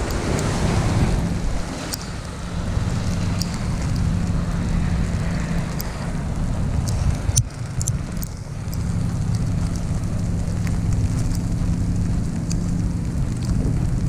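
Wind buffeting the microphone with a heavy low rumble, over the steady hiss of an icy snowstorm, with scattered sharp ticks and a brief jolt about halfway through.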